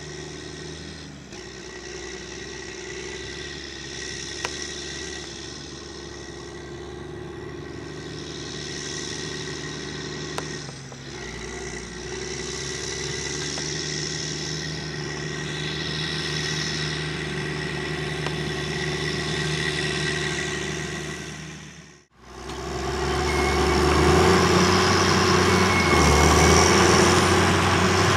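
TerraGator self-propelled digestate applicator's diesel engine running steadily under load while it works across the field. It grows louder as the machine comes nearer. After a short break about two-thirds of the way in, it is heard much closer and louder.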